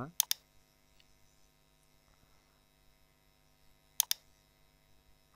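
Two quick double-clicks of a computer mouse, one just after the start and one about four seconds in, over a faint steady mains hum.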